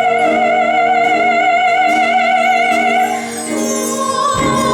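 A woman singing a slow ballad holds one long note with vibrato, the last syllable of "unworthy", until about three seconds in. A higher note then comes in with fuller accompaniment near the end.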